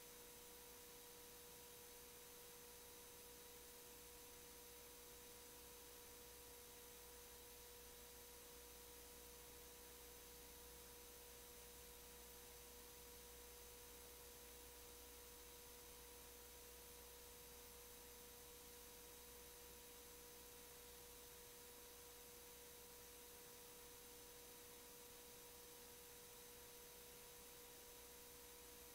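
Near silence: a faint, steady pure tone held without change over a low hiss, as from an idle audio feed.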